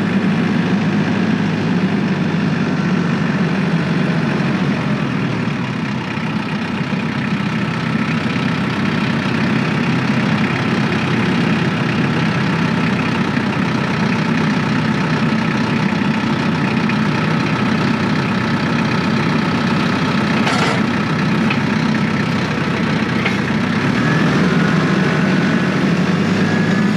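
Tractor engine running steadily at a fairly even speed.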